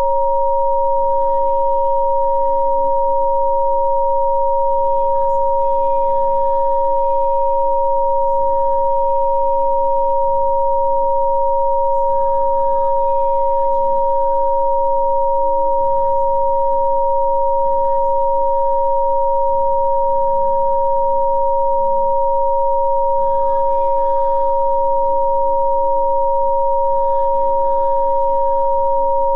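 Rife frequency-therapy tones: two steady pure sine tones, a lower and a higher one, held at constant pitch without a break. Faint soft ambient music with slowly changing chords plays underneath.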